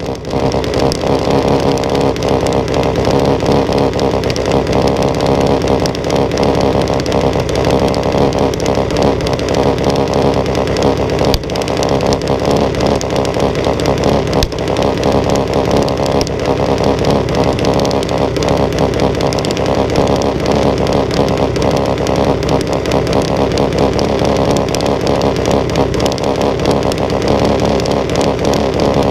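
Junior dragster's single-cylinder engine idling steadily at close range, with quick, even firing pulses.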